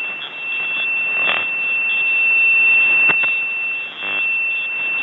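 Radio receiver hiss from a 40 m amateur radio, narrowband and steady, with a continuous high-pitched whistle. Brief crackles come about a second in and again about three seconds in.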